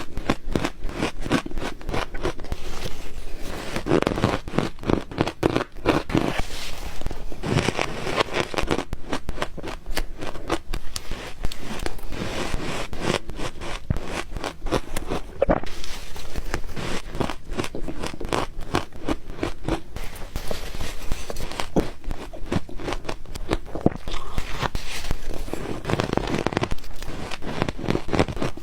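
Close-up crunching of ice being bitten and chewed: a dense, continuous run of sharp cracks and crackles.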